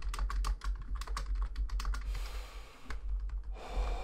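Rapid typing on a computer keyboard, several keystrokes a second, broken by a short hissing rush about halfway through and another near the end, over a steady low hum.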